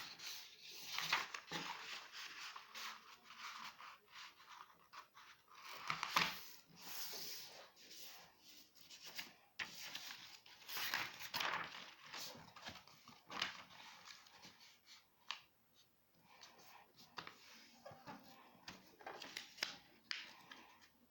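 Irregular rustling, tearing and snipping of material being handled and cut by hand.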